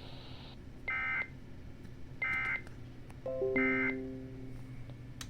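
Three short bursts of EAS end-of-message data tones (the "NNNN" code) from a NOAA Weather Radio broadcast, closing the severe thunderstorm watch alert. A few lower steady tones come in under the third burst and fade out.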